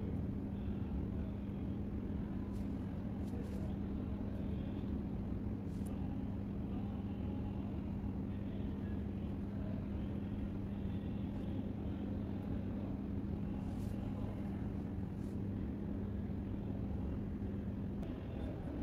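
Steady low mechanical hum with a constant droning tone. The tone drops out shortly before the end, and faint ticks sound now and then.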